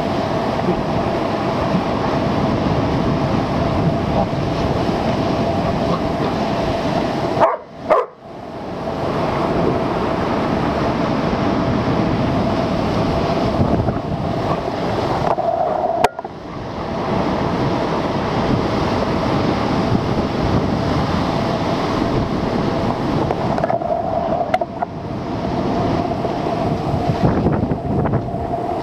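Strong wind buffeting the microphone over storm waves crashing and surging against a rock breakwater. The steady rush dips out briefly twice.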